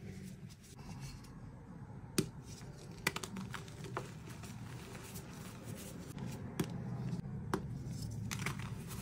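Hands crushing and squeezing blocks of gym chalk into loose powder: a steady soft crunching, broken by about six sharp cracks as pieces snap.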